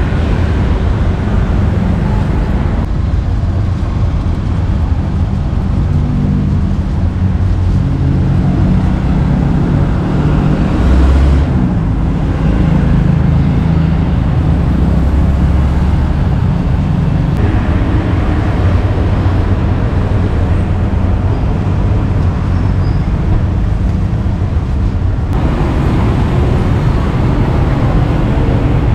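Road traffic on a busy street: cars and motorbikes running past in a steady low rumble. The sound changes abruptly a few times.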